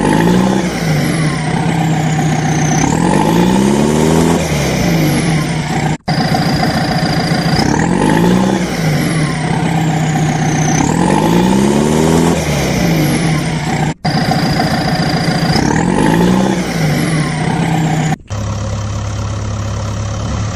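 Looped vehicle-engine sound effect, running and revving with rising and falling pitch. The same clip of about eight seconds repeats twice, each joined by a sudden cut. Near the end it changes to a steadier, lower engine hum.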